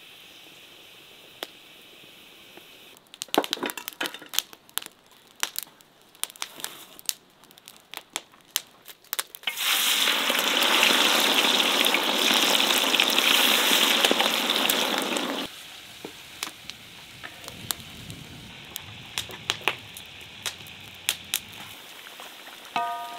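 Lamb frying in hot fat in a cast-iron kazan. Sharp crackles and pops come first, then about ten seconds in a loud sizzle starts suddenly, lasts about six seconds and cuts off. A softer frying sound with scattered pops follows.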